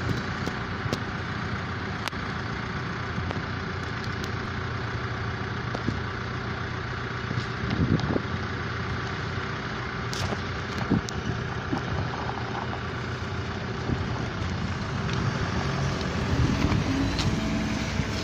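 Street traffic noise as an electric trolleybus drives up and passes close by, getting louder over the last few seconds, with a few short knocks.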